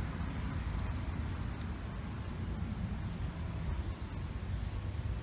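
Steady low outdoor rumble with a thin, steady high hum over it, and a couple of faint snips from small scissors cutting herb stems, the clearest about one and a half seconds in.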